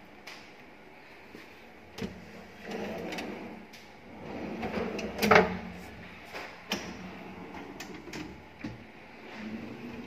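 Chrome wire shelves of a Häfele pull-out corner cabinet fitting sliding along their metal runners, rattling and clicking, with a sharp clunk about halfway through.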